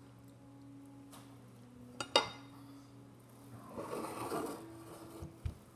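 Plastic fork on a ceramic plate: a sharp click about two seconds in, then a longer scrape about four seconds in, over a low steady hum.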